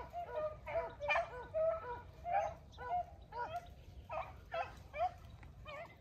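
A pack of rabbit beagles baying as they run a rabbit's trail. Several voices overlap in short, arching calls, about two or three a second.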